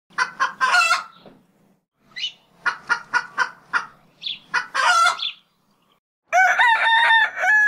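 Chickens clucking in short runs, then a rooster crowing from about six seconds in.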